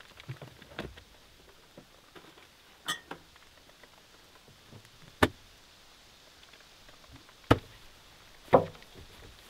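Sharp clicks and knocks of items being handled inside a pickup truck's cab, single strokes a second or two apart, and the cab's rear door thudding shut at the very end.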